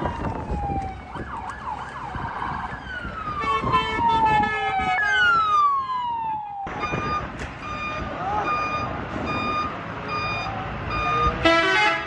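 Emergency vehicle sirens wailing, several falling sweeps overlapping. About six and a half seconds in they cut off sharply, and an evenly repeating electronic beep follows, with a short loud blast near the end.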